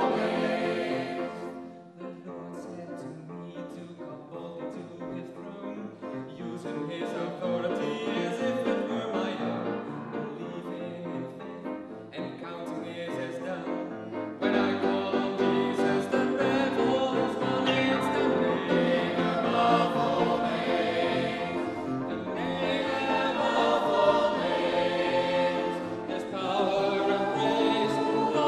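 Mixed choir singing a Christian gospel song. About two seconds in the sound drops to a quieter passage led by a man singing solo into a microphone, and about halfway through the full choir comes back in louder.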